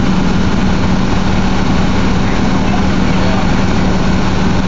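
Large engine idling steadily: a constant low hum over a dense rushing noise.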